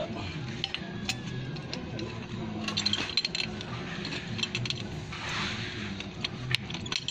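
Pipe wrench and metal faucet clicking and clinking as the faucet is turned onto a threaded pipe fitting: irregular sharp metallic clicks with some scraping, over a steady low hum.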